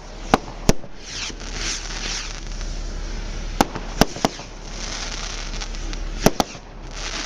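Aerial fireworks shells bursting: seven sharp bangs in quick groups, two early on, three about halfway, and a close pair near the end, with a steady hiss between them.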